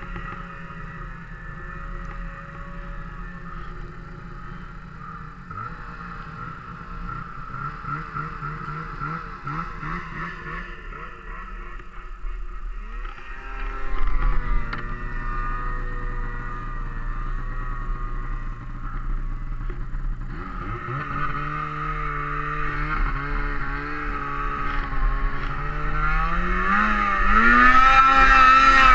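Snowmobile engine running, fairly steady at first, then revving up with rising pitch about halfway through and again near the end as the sled pulls away and climbs, getting louder toward the end.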